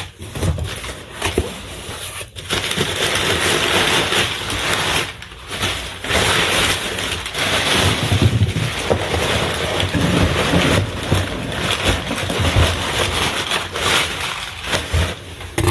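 Packaging being torn open and handled by hand: a dense crackling and rustling in stretches of a few seconds, with short pauses.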